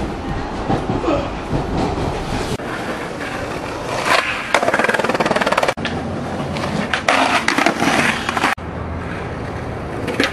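Skateboard wheels rolling on concrete, with the clacks and scrapes of board tricks on a ledge and stairs. The sound comes in short stretches that change abruptly a few times, with a few sharp knocks between them.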